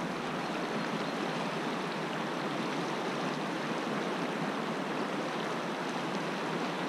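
Fast, shallow river rushing over rocks close by: a steady, even hiss of flowing water.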